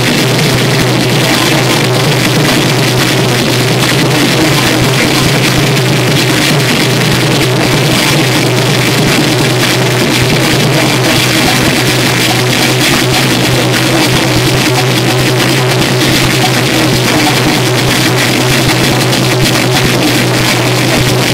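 Loud live electronic noise music played from a mixing desk and Roland gear: a dense, unbroken wall of sound with a steady low drone underneath.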